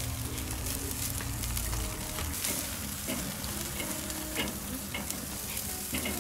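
A large steak sizzling on the grate of a charcoal kettle barbecue over hot coals, a steady hiss with occasional sharp crackles.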